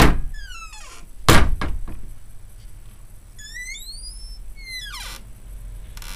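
A wooden glass-paned door pushed shut by a small child, bumping closed with a sharp thud about a second in. A run of short, high squeaks follows a couple of seconds later.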